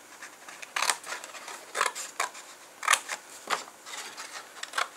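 Small scissors snipping through thin card: several sharp snips at uneven intervals.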